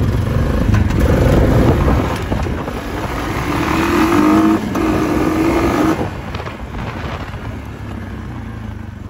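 Honda Rubicon 520 ATV's single-cylinder engine running as the quad pulls away and picks up speed. Its pitch rises over a couple of seconds around the middle, then it eases off near the end.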